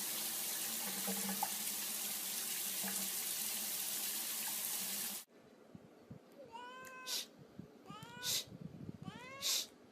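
Water running steadily from a tap for about five seconds, then cutting off suddenly. A cat then meows four times at about one-second intervals, each meow followed by a short, sharp hiss-like burst.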